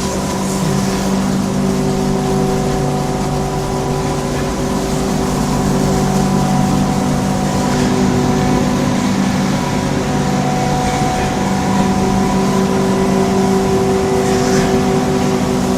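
Paper-pulp egg tray making machine line running: a steady, loud industrial hum with several held tones over a constant noise, and brief hisses near the start and near the end.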